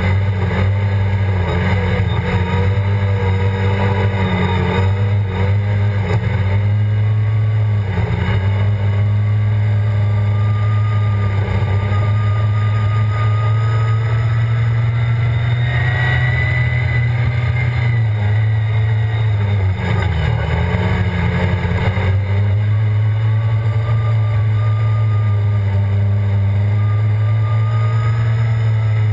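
Redline Revolt snowmobile engine running hard at high, steady throttle across sand. The engine note sags briefly a few times, about a fifth of the way in and again about two-thirds in, as the throttle eases off.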